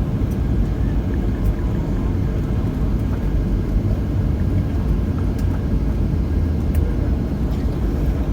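Steady low rumble inside the cabin of a flydubai Boeing 737 airliner rolling on the ground just after landing, with a few faint ticks.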